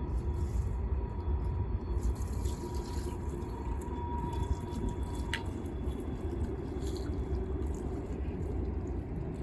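Floodwater trickling and dripping, with scattered small splashes over a steady low rumble.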